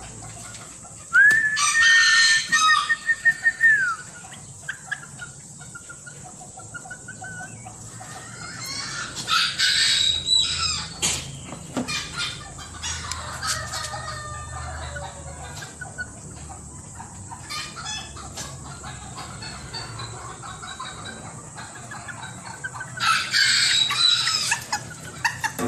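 Serama bantam rooster crowing three times: about a second in, about nine seconds in, and near the end. The first crow holds a long high note before dropping away.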